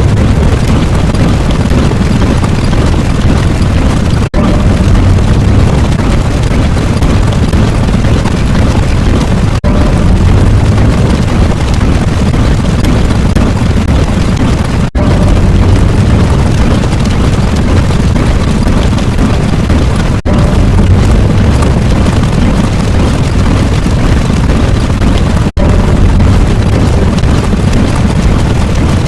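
Very loud, dense, distorted rumbling noise like massed explosions, heaviest in the bass, broken into segments about five seconds long by a brief gap before each.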